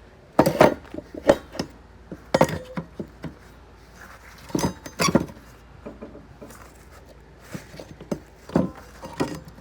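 Irregular clunks and knocks of a welded 3/4-inch steel frame being handled and set down on plywood, a few sharp hits with short gaps between.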